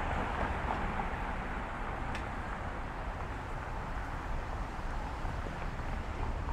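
Steady downtown street ambience: a continuous hum of traffic with a low rumble underneath and no single clear event.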